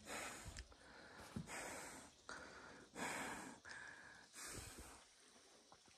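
A person breathing hard and fast, a breath about every three-quarters of a second, out of breath from a steep stair climb; the breathing fades in the last second.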